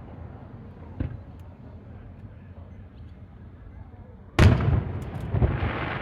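Aerial fireworks bursting: a faint thud about a second in, then a loud boom near the end, followed by another burst and a lingering crackling hiss.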